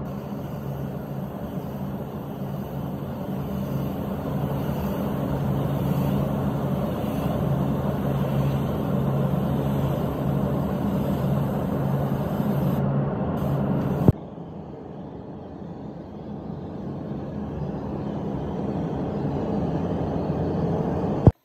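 Steady drone of air-blowing machinery with a low hum while a gravity-feed spray gun sprays grey paint onto a car door. About fourteen seconds in it cuts with a click to a quieter level, then builds up again.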